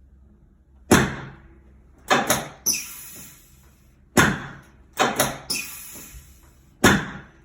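Chiropractic drop table's drop sections releasing and falling under the chiropractor's thrusts during a pelvic adjustment: about nine loud, sharp clunks in quick groups, each ringing briefly.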